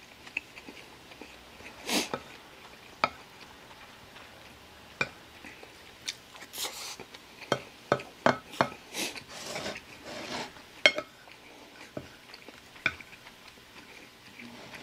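Wooden spoon scraping and clicking against a ceramic plate while scooping up fried rice, in scattered short strokes that come thickest in the middle.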